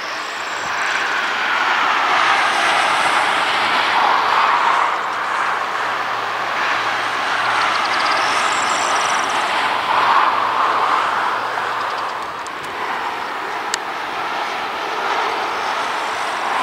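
Jet engines of a Boeing 757-200 freighter running as it moves along the ground: a steady rushing sound that swells and eases a little every few seconds, with a faint high whine at times. A single sharp click near the end.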